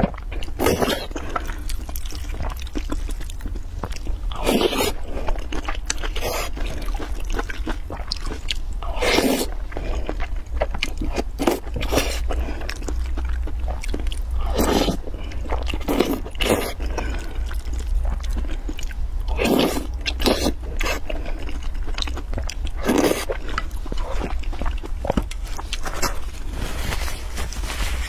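Close-miked eating sounds: a person slurping and chewing soft, saucy food from a wooden spoon, with irregular wet mouth noises every second or two. A steady low hum runs underneath.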